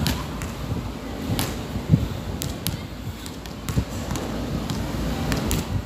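Scattered sharp knocks and thuds at irregular intervals, the loudest about two seconds in, over a steady low rumble.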